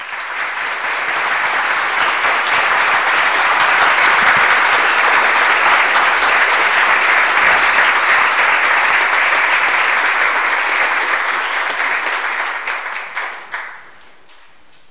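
Crowd applauding, many hands clapping at once. The applause swells in over the first couple of seconds, holds steady, and fades out near the end.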